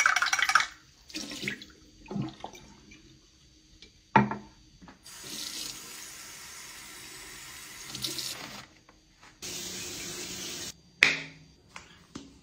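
Bathroom tap running into a sink basin, first splashing as a glass cup is rinsed, then streaming steadily into cupped hands for a few seconds, with short knocks and splashes of the cup and hands at the basin in between.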